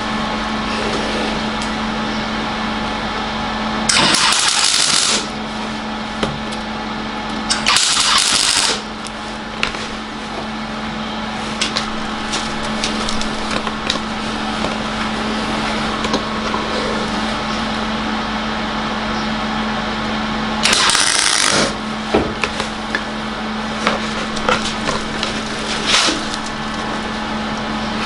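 Cigweld WeldSkill 135 A MIG welder tacking a new steel body panel: three short bursts of arc crackle and hiss, each about a second long, over the welder's steady hum and continual sputtering. The CO2 shielding gas has not yet been turned on, so the arc is welding without gas.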